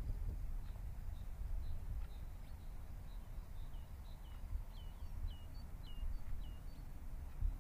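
Small birds chirping: short, high, hooked notes, several in quick succession in the middle stretch, over a steady low rumble.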